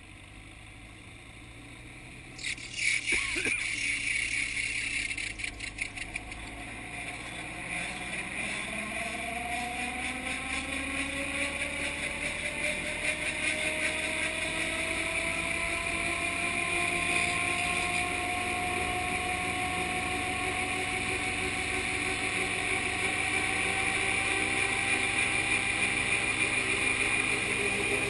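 Gyrocopter engine starting with a stuttering burst about three seconds in, then running with a tone that slowly rises and grows louder as it speeds up.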